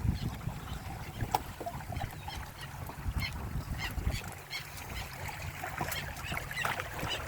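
A small sailboat under way: water splashing and slapping against the hulls in many short sharp hits, over a low rumble of wind and water. A low steady hum comes in about halfway.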